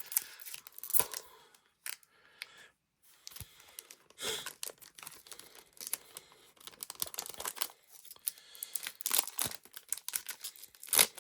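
Foil Pokémon card booster pack being torn open and crinkled in the hands: irregular short tearing and crinkling rustles, the loudest near the end.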